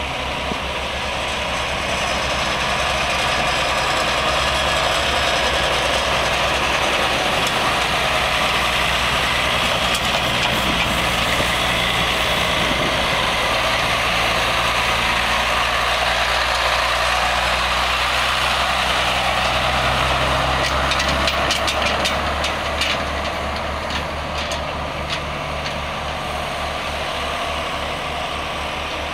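1993 International 8100 single-axle dump truck's diesel engine running as the truck drives slowly around in a loop. It grows louder a couple of seconds in as the truck comes close, then eases back down over the last several seconds.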